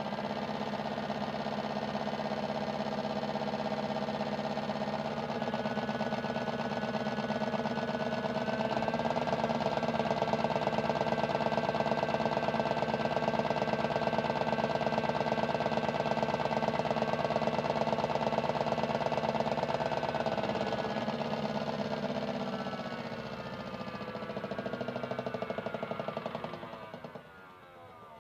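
Washing machine drum spinning at high speed, its motor whine holding a steady pitch with a fast even pulse, then winding down, falling in pitch over the last several seconds.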